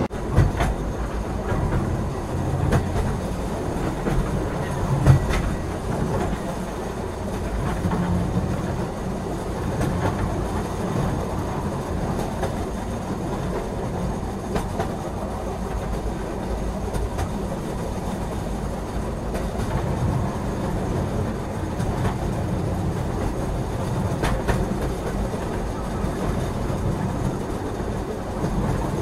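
Passenger train coaches running along the track, heard from an open doorway: a steady rumble of wheels on rails with the clickety-clack of rail joints and scattered sharp knocks, one louder about five seconds in.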